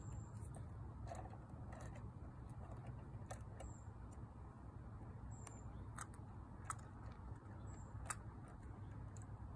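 Faint scattered clicks and taps of a plastic toy garbage truck and toy wheelie bin being handled on concrete, over a low steady hum.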